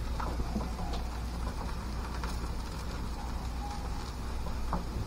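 Shredded-potato pancake batter sizzling steadily in oil in a frying pan, over a steady low hum, with a few light clicks.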